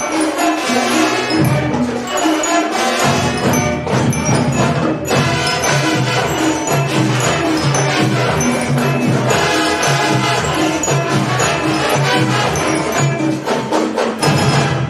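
Marching band playing a lively tune, with brass over a steady beat of drums and percussion.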